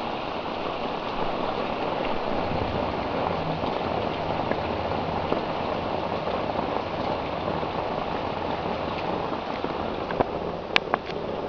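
Rain falling steadily and hard during a thunderstorm. A few sharp clicks sound a little before the end.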